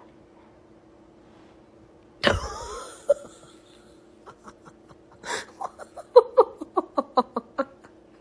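A sudden sharp cry with a falling pitch about two seconds in. Then, from about five seconds in, a person laughs in a rapid run of short bursts for nearly three seconds. A faint steady hum lies underneath.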